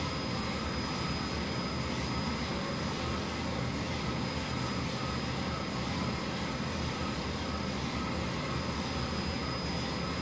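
Commercial drum coffee roaster running steadily mid-roast, drum turning and burner and exhaust fan going, with a 10-pound batch still green in the drying phase: a constant whir with a faint high whine.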